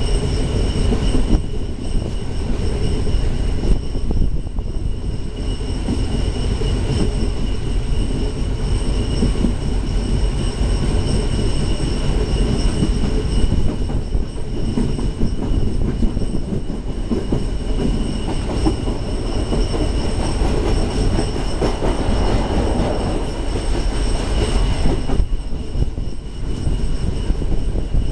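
Tezgam Express passenger train running at speed, heard from aboard: a steady rumble of wheels on rail mixed with rushing air, with a faint steady high whine above it.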